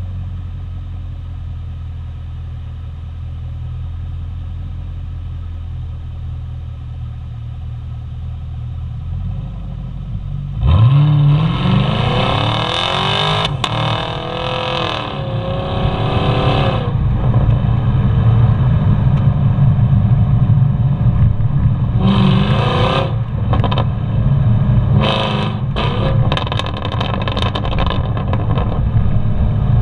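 2021 Camaro SS 1LE's V8 through its NPP performance exhaust: a steady low rumble, then about ten seconds in a sudden hard acceleration with the pitch climbing. A louder, rougher run follows, broken by short sharp spurts of exhaust pops and crackles in the last several seconds.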